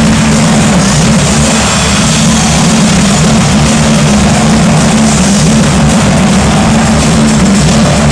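Loud, steady, distorted rumble from the arena's sound system, heavy in the low end and overloading the microphone, building toward rock music.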